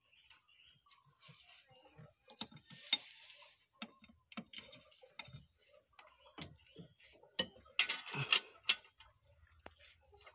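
Scattered metallic clicks and clinks of a combination wrench on a newly fitted oxygen sensor as it is tightened and its wiring is handled, with a denser clatter about eight seconds in.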